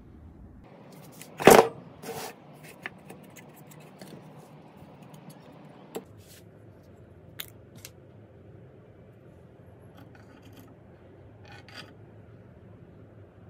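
Wooden bandsaw-box parts being handled on a workbench: one loud knock about a second and a half in, a softer knock just after, then scattered light clicks and taps of wood being set down and fitted.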